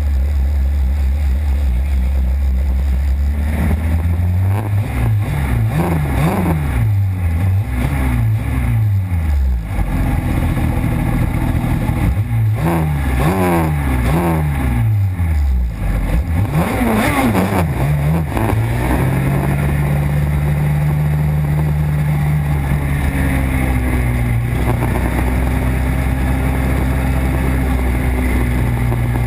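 Suzuki RG500 square-four two-stroke engine idling, then blipped over and over with quick rises and falls in revs for about fifteen seconds. After that it settles to a steady, higher engine speed.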